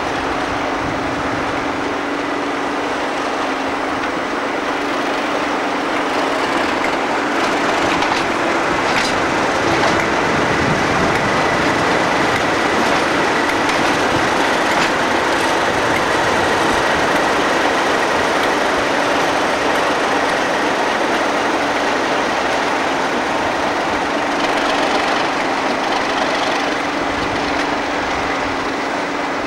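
Diesel train running past on the line, a steady rumbling noise that swells a little in the middle and eases toward the end.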